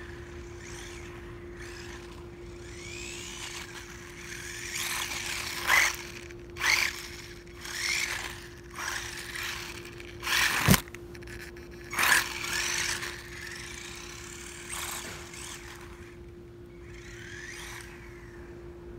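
HBX Ratchet 1/18-scale 4x4 RC buggy's electric motor whining and tyres hissing on asphalt as it makes repeated high-speed passes, the pitch rising and falling with each pass. A single sharp knock about eleven seconds in.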